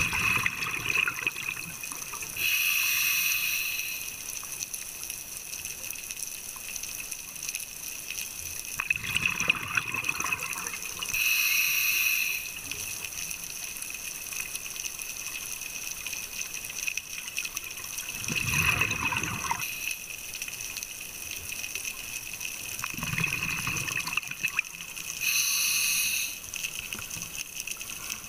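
A scuba diver breathing through a regulator, heard underwater: a hiss on each inhale and a rush of exhaust bubbles on each exhale, about three breaths in all, over a steady faint high hum.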